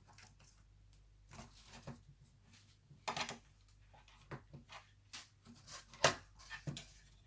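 Laptop parts being handled and fitted during reassembly: a scatter of irregular light clicks, taps and knocks of plastic and metal pieces, the loudest about six seconds in, over a faint steady hum.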